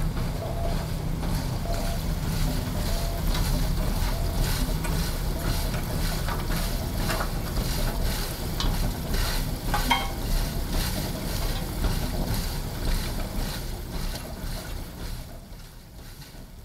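Harsh noise music from electronic effects pedals and modules: a dense wall of low rumble and hiss with a few crackles, fading out near the end.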